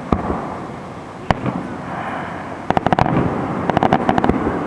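Aerial fireworks bursting: two sharp single bangs in the first second and a half, then two quick runs of rapid pops around three and four seconds in.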